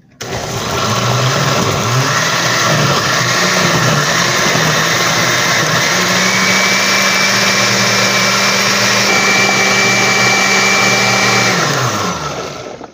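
Countertop blender pureeing soaked guajillo chiles with onion and garlic in a little water: the motor switches on just after the start, its pitch wavers for the first few seconds while the chunks break up, then holds steady once the sauce is smooth, and it winds down and stops near the end.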